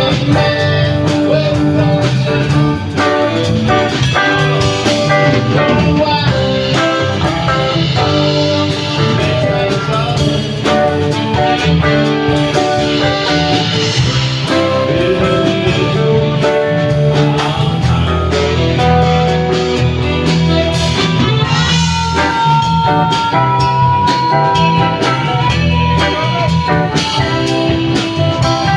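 Live blues-rock band playing: guitars over bass and a drum kit, with a few long held lead notes in the second half.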